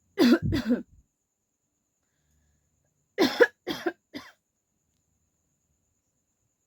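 A woman coughing deliberately on demand rather than in a real coughing fit: two coughs, then after a pause of about two seconds three more in quick succession, the last one weaker.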